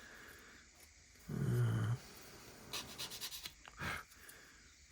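A brief low hum-like vocal sound lasting under a second, then a few light clicks of small kit parts being handled.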